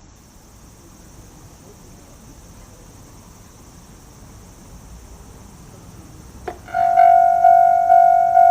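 Homemade level-crossing model's electronic warning bell, Tokai-type sound: after a click about six and a half seconds in, it starts ringing, a pitched ding repeating a little over twice a second, each stroke fading away. Before it, only a faint hiss.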